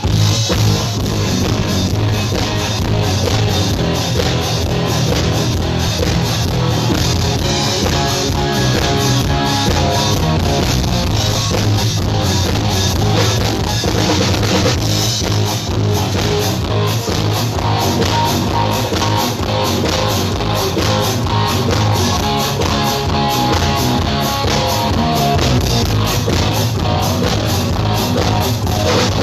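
Rock music with a drum kit and guitars playing loudly and continuously through a concert PA system, a full band coming in right after drums alone.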